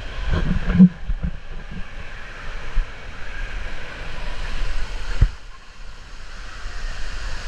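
Water rushing down a fiberglass water slide beneath a sliding rider, heard as a steady wash of water and wind noise on a ride-along camera. Two knocks stand out, the louder about a second in and another just after five seconds.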